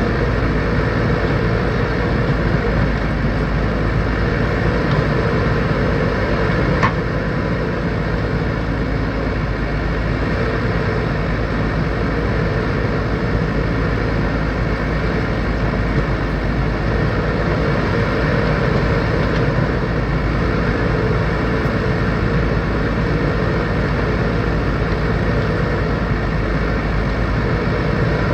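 Backhoe loader's diesel engine running steadily, with one short sharp click about seven seconds in.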